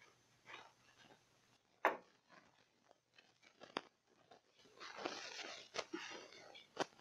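Small handling noises at a workbench: a few sharp clicks and a short rustling scrape about two-thirds of the way in, as small electronic parts are picked up and tested.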